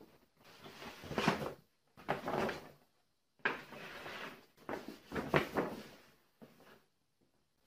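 Large sheets of paper rustling and crackling as hands handle them and press them around a stick frame, in four or five separate spells of rustling.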